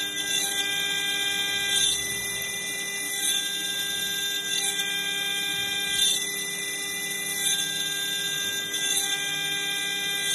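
Water-cooled CNC router spindle whining steadily while milling aluminum. Its held high tones shift in a regular cycle, and a cutting hiss swells about every one and a half seconds.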